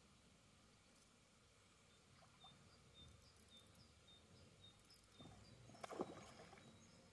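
Quiet pond-side ambience: a small bird repeats a short high chirp about three times a second for a couple of seconds. A brief louder noise comes about six seconds in.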